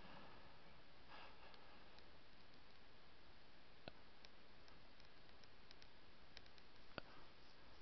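Near silence: a steady faint hiss with a few soft clicks, the clearest about four seconds in and near the end.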